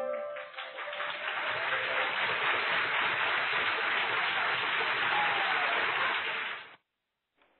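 The last held note of a sung ballad and its accompaniment end, and a live audience breaks into applause. The applause cuts off abruptly near the end.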